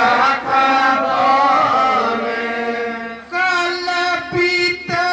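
Devotional aarti hymn being sung as a chant-like melody, the voice gliding between notes. The line breaks off briefly about three seconds in and a new phrase begins.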